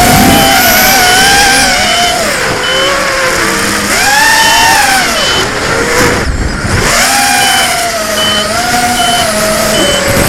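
FPV quadcopter's electric motors whining loudly with wind rush, their pitch rising and falling as the throttle changes. About six seconds in the motors drop off briefly as the throttle is cut, then spin back up.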